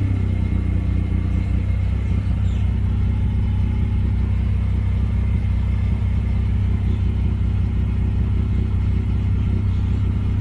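Rotary engine idling steadily on a freshly flashed idle tune, settling while the ECU self-learns its idle.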